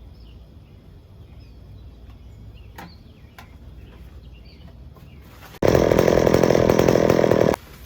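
Packaging being ripped open: one loud, rasping rip with a fast stutter, lasting about two seconds and cutting off abruptly, after some quiet handling ticks.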